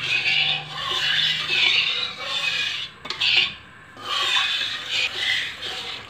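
Flat metal spatula scraping and rubbing across the bottom of a metal kadhai in repeated strokes, with a short pause a little after halfway, as milk is stirred slowly into flour roasted in ghee for a white sauce.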